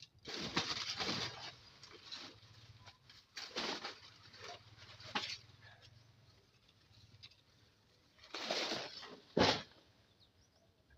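Rustling of pulled weeds and leaves being gathered up and thrown, in a series of short bursts, the loudest two near the end.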